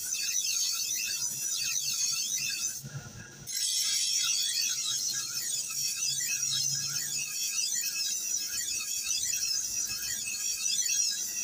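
Steel knife blade ground against a spinning abrasive grinding wheel to sharpen a dull edge: a high, wavering grinding screech over the low hum of the wheel's motor. The screech breaks off briefly about three seconds in, when the blade comes off the wheel.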